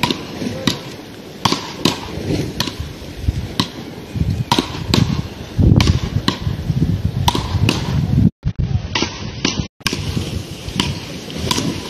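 Beach-racket paddles striking a small ball in a fast rally: sharp clacks at an uneven pace, roughly one or two a second. The sound drops out briefly about two-thirds of the way in.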